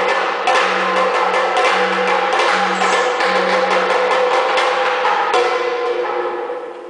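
Chenda, the Kerala cylindrical drum, beaten rapidly with sticks in a dense rhythm, with ringing tones under the strokes. A last strong stroke comes a little after five seconds, and the sound dies away near the end.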